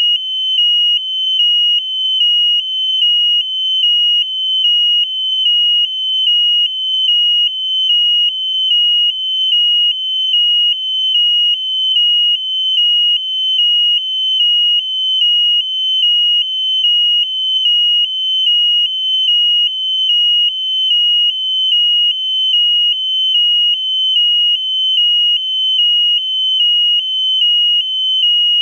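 Electronic piezo buzzer on a high-altitude balloon payload, sounding one high-pitched tone that pulses evenly about once a second without a break.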